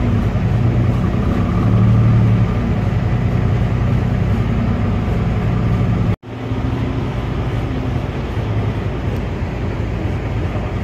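Heavy-equipment engine running steadily under load while pushing a heavy load, swelling slightly about two seconds in. There is a momentary dropout about six seconds in.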